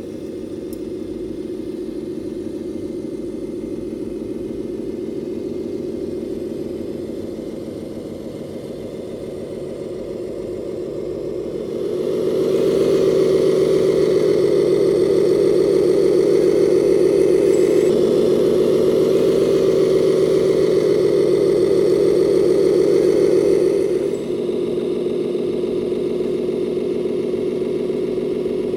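Engine sound of a 1/14-scale RC Mercedes-Benz Arocs 8x8 truck, a steady pulsing diesel-like running sound. It rises and gets louder about twelve seconds in, then drops back suddenly about twelve seconds later.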